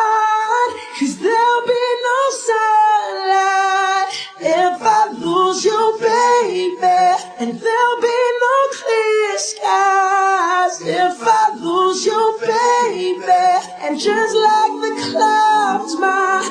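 A cappella singing: several layered voices hold and shift chords, with no clear lyrics.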